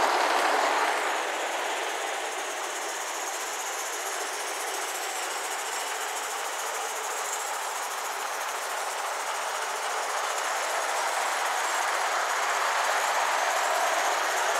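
Gauge 1 live steam tank locomotive running with a rake of coaches on garden railway track, a steady rolling, rushing noise of the train on the rails. Louder for about the first second, then quieter, building slowly again near the end.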